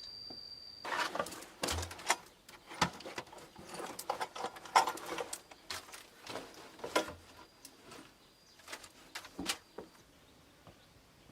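Irregular clicks, knocks and rustling, as of hands working with materials, dense for several seconds and then thinning out. A steady high tone stops about a second in.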